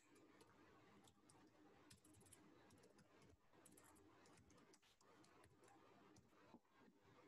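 Near silence with faint, scattered clicks of a computer keyboard being typed on.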